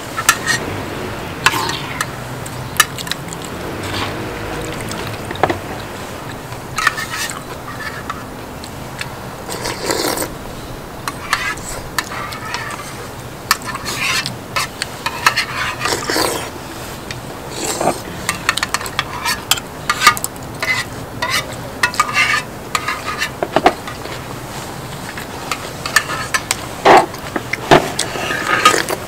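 Spoons and chopsticks clinking and scraping irregularly against bowls and the cast-iron sot-ttukkeong cauldron lid while eating, with food sizzling on the hot lid underneath.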